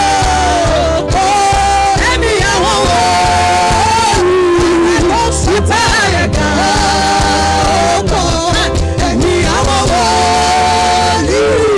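Worship music: a singing voice holding long notes that slide between pitches over a steady low accompaniment.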